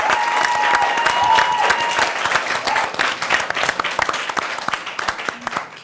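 Studio audience and talk-show guests applauding, the clapping thinning out toward the end.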